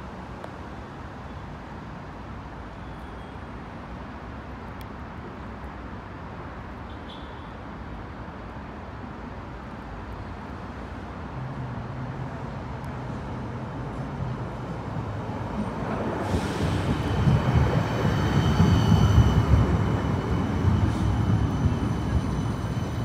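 West Midlands Metro CAF Urbos electric tram approaching and passing close by. A low hum comes in about halfway and grows steadily louder, peaking in the last few seconds as the tram goes past, with several steady high-pitched whines over the rumble of the wheels.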